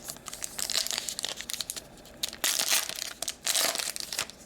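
A plastic trading-card pack wrapper being torn open and crinkled, with two louder stretches of crackling about two and a half and three and a half seconds in.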